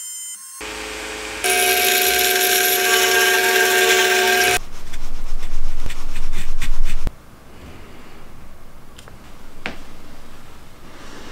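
MTR-42 trim router running with a steady high whine, then cutting wood, louder and rougher, for a couple of seconds before cutting off suddenly. Afterwards only faint handling noise with a couple of light clicks.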